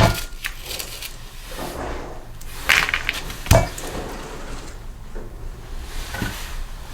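Tools and engine parts being handled on a workbench: a few separate knocks and clatters, the loudest about three and a half seconds in.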